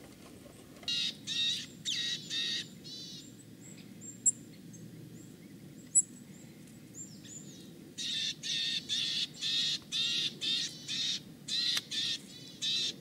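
Birds calling in quick series of short, harsh calls: one run about a second in, a longer run from about eight seconds in. Two sharp clicks fall in the gap between the runs.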